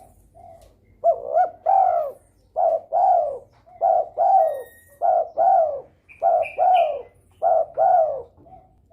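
Derkuku dove in breeding condition cooing repeatedly: six loud two-part coos, a short note then a longer falling one, about one every 1.2 seconds, starting about a second in.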